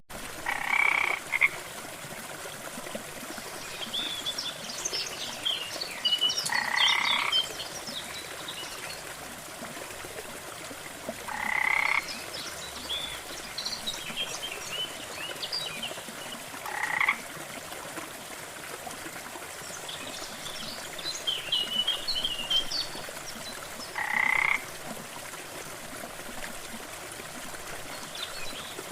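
A short croaking call repeats about every five seconds, six times in all. Birds chirp in high bursts between the calls over a faint steady hiss.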